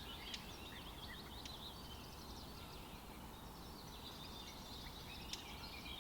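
Faint background bird chirping, many short quick calls, thinning in the middle and picking up again near the end.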